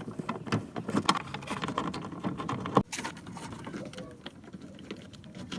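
Irregular clicking and knocking of hand tools and plastic parts while a car's tail light is being taken off, with one sharp knock about three seconds in.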